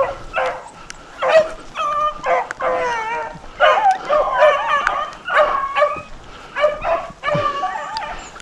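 A pack of rabbit hounds baying on a running rabbit's trail, several dogs giving tongue at once in short, overlapping yelps and bays that come in waves.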